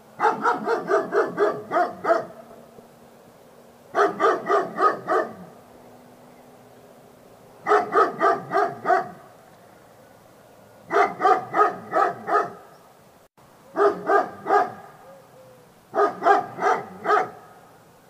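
Dog barking in six quick bouts of about six to eight rapid barks each, with a pause of a couple of seconds between bouts.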